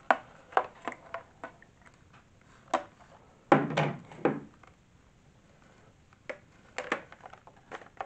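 Scattered sharp plastic clicks and knocks as a cordless stick vacuum's battery pack is handled, with a louder clatter about halfway through.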